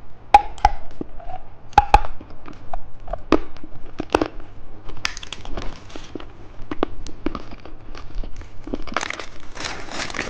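Plastic candy packaging crinkling and rustling as it is handled and torn open, with scattered sharp clicks and snaps; the crinkling grows denser near the end.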